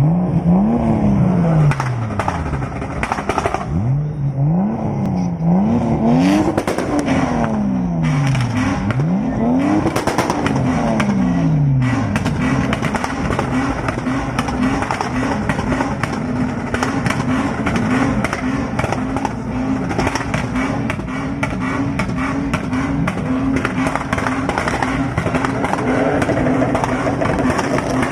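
Tuned Lexus IS300 engine revved over and over, its pitch rising and falling with each blip, with exhaust crackles and pops throughout. After about twelve seconds the revs are held steady while the crackling goes on rapidly.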